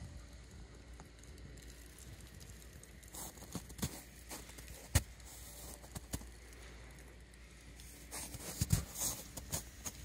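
Scattered small taps, clicks and rustles of handling and movement, with one sharp knock about five seconds in and a flurry of clicks and rustling near the end.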